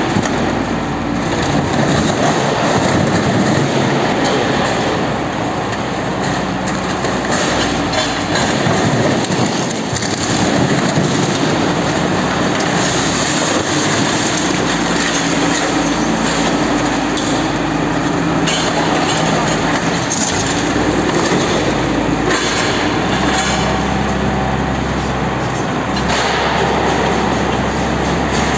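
Heavy machinery running with a loud, continuous rumble and clatter that does not let up.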